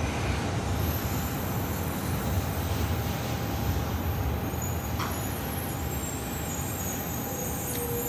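700 series Rail Star shinkansen moving slowly alongside the platform: a steady low rumble with a thin, even hum over it, and a single sharp click about five seconds in.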